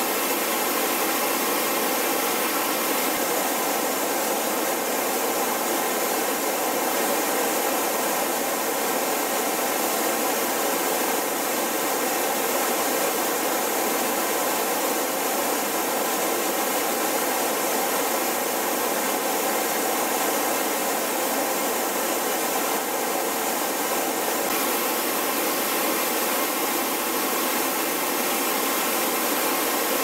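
The Gastein waterfall: a large volume of water rushing steadily down a steep rock cascade, an even, unbroken noise.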